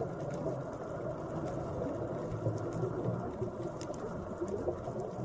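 Steady water ambience: an even, low wash of flowing water, with a few faint clicks.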